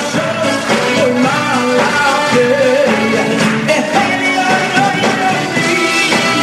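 Live band playing an upbeat Jewish rock-folk song, with a male lead singer singing into a handheld microphone over the band.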